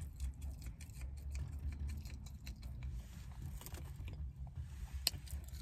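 A person chewing a mouthful of loaded French fries close to the microphone, with many small wet clicks and smacks, over a low steady rumble. One sharper click comes about five seconds in.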